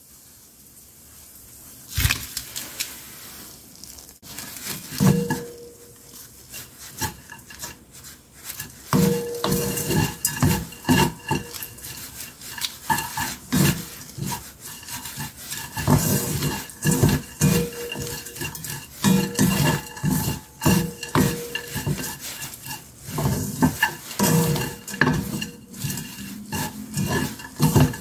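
Wooden chopsticks and a wooden spatula stirring and tossing glazed dried anchovies in a pan: repeated scraping and knocking against the pan, with a faint sizzle. It starts about two seconds in and gets busier and louder from about nine seconds in.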